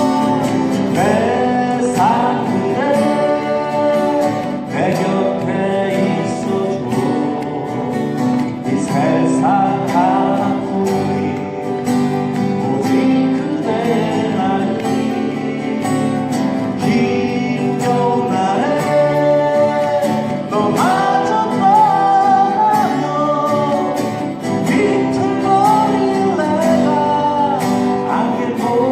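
Folk song played on acoustic guitar, with a sung melody line over steady strummed accompaniment.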